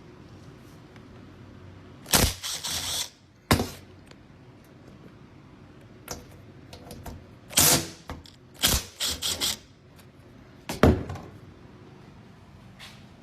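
Knocks and clatters of washing machine parts being handled and pulled apart during a teardown, in scattered bursts: a clatter about two seconds in, a single knock soon after, a run of knocks around eight to nine seconds, and one sharp knock near eleven seconds.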